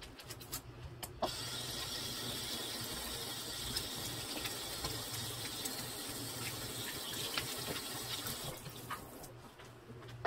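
Kitchen tap running water into a sink, a steady hiss that starts suddenly about a second in and stops near the end.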